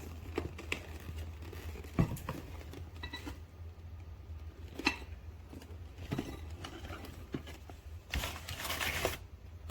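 A cardboard package holding a ceramic bowl set being handled and opened: scattered knocks, clicks and rustles, with a longer rustling, tearing noise near the end.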